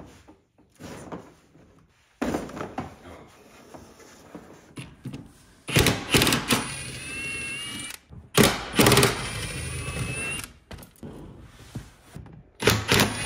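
Ridgid cordless impact driver with a 10 mm socket backing out the bolts that hold a car seat: three runs of a couple of seconds each, its motor whine rising as it spins up. Before the first run, softer rustling and knocks from handling.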